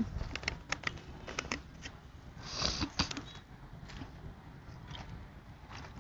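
Footsteps crunching on loose stones and gravel, irregular clicks and scrapes, with wind rumbling on the microphone and a brief hiss about two and a half seconds in.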